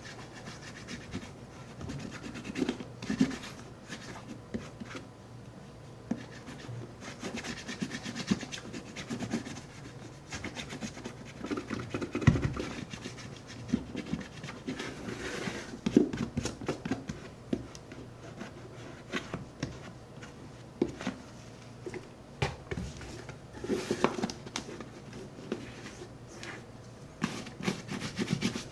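Shoe cream being worked into a leather Red Wing 8080 boot: irregular rubbing and scratching strokes over the leather, with a few small sharp knocks.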